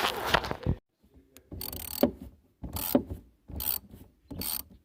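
A socket ratchet clicking in about five short strokes, each stroke a quick run of clicks, as a fastener is worked on the 2009 Chevy Cobalt's newly installed knock sensor.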